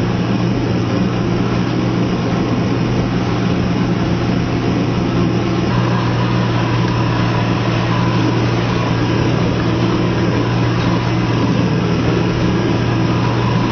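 4WD vehicle driving along, its engine and running gear making a steady drone heard from inside the cabin. A faint, higher steady whine joins about six seconds in.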